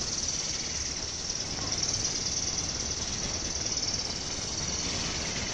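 Wind buffeting the microphone in an irregular low rumble, under a steady high-pitched hiss.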